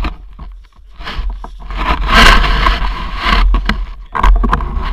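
Scraping and crunching on snow, loudest about two to three seconds in, over a steady low rumble of wind buffeting the action camera's microphone, with a few knocks.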